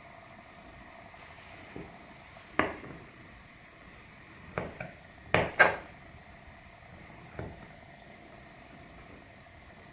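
Maxace Amber 2S folding knife slicing grapes, its blade knocking on the cutting board: about seven sharp taps at irregular spacing, the loudest a close pair about halfway through.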